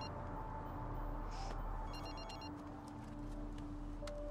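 Mobile phone ringing: a short, high, trilling electronic ring that repeats about every two seconds.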